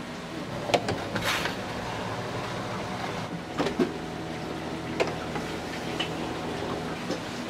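Steady electric motor hum, with a few sharp knocks and a short hiss about a second in.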